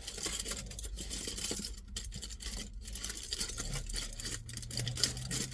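Close-up chewing of a mouthful of doner kebab, with irregular small wet clicks and crackles.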